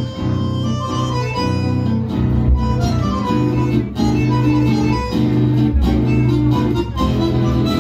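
Live milonga music: plucked acoustic guitar with a bass line under sustained, reedy melody notes.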